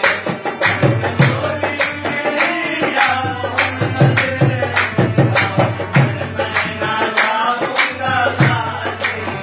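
Qawwali: men singing over a steady percussion beat of about two to three strokes a second.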